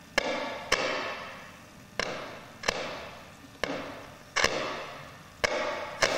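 Sharp knocks from a sound sculpture's mechanism, each followed by a ringing decay of about a second. They come in pairs, four pairs in all, in a heartbeat-like rhythm.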